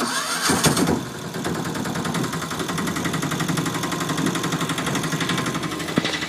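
An engine running steadily with a fast, even pulse, starting abruptly and louder for about the first second, with a single click near the end.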